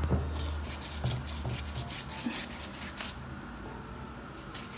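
Pastry brush stroked over oiled phyllo dough sheets in a metal baking tray, a quick run of papery rubbing strokes that stops about three seconds in.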